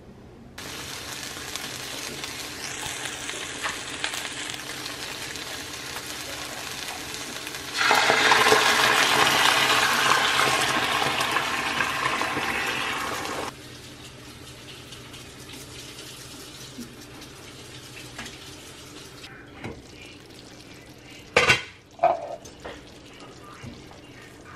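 Chicken drumsticks sizzling in a skillet. The sizzle jumps much louder for about six seconds in the middle as a cream sauce is poured over the hot chicken, then settles to a quieter simmer, with a couple of sharp knocks of tongs against the pan near the end.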